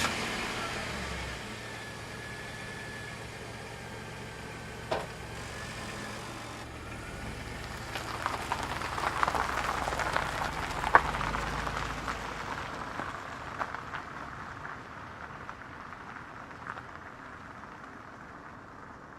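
Car engine idling just after starting, then the car pulls away on gravel: tyres crunching with small stones popping, the sound slowly fading as it moves off. A single sharp click about five seconds in.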